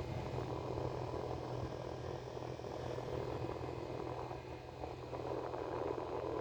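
Rechargeable mini fan running: a small electric motor's steady low hum under a rough, grainy whir of the blades.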